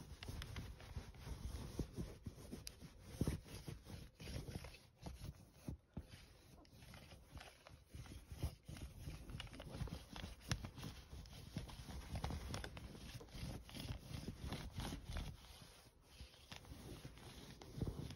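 A sticky lint roller rolled back and forth over a padded fabric dog bed: an irregular rubbing with many small clicks.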